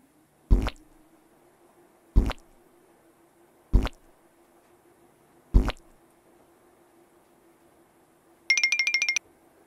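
Cartoon sound effects of frosting squirted from a piping bag onto cupcakes: four short, sudden squirts about a second and a half apart. Near the end comes a quick run of bright tinkling chimes as sprinkles go on.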